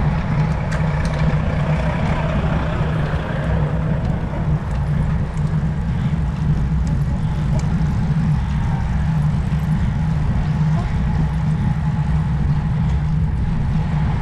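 Steady wind rumble on the microphone of a camera carried on a moving road bike.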